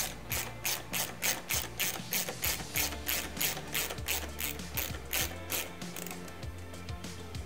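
8 mm ratchet wrench clicking in quick, even strokes, about three a second, as a seat stay pivot bolt is unscrewed; the clicking thins out and stops about six seconds in.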